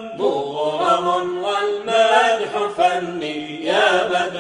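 A voice chanting an Arabic devotional qasida, holding long melismatic notes that slide between pitches.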